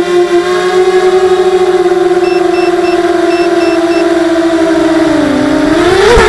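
Brushless motors of a 260-size FPV mini quadcopter (RCX 1804 2400KV) spinning 5x4 props, a steady high-pitched whine heard close from the onboard camera. The pitch sags about five seconds in, then climbs sharply to its loudest just before the end as the motors spin up.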